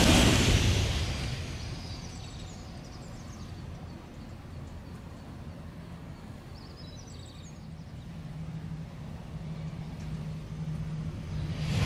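Rushing noise of a Shinkansen bullet train dying away over the first couple of seconds, then a quiet stretch with a few short bird chirps. Near the end the rush of the next Shinkansen rises quickly as it approaches.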